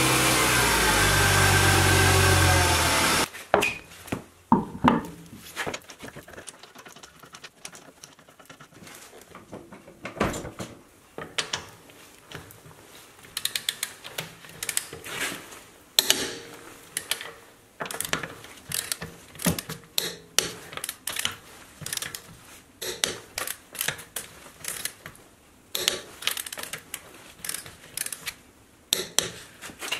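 A power tool whirs loudly for about three seconds. After that come short runs of ratchet clicks and metal knocks as a torque wrench tightens the wheel's lug bolts.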